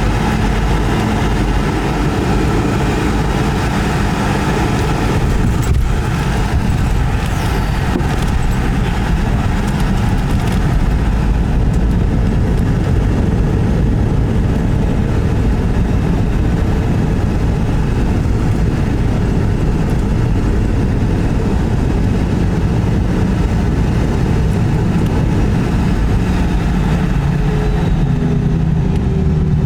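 Cabin noise inside a Boeing 717: a steady loud rumble of its rear-mounted Rolls-Royce BR715 engines and airflow, whose higher hiss fades away about ten seconds in. There is a single click about six seconds in.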